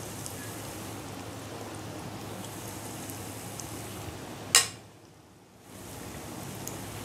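Pakora batter deep-frying in hot oil: a steady sizzle with small scattered pops. A single sharp click comes about four and a half seconds in, and the sizzle drops away for about a second after it.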